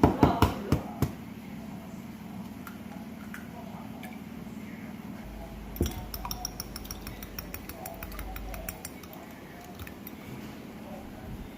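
Dishes, glassware and cutlery clinking: a cluster of sharp loud clinks in the first second, then a run of quick light ticks from about the middle for some three seconds.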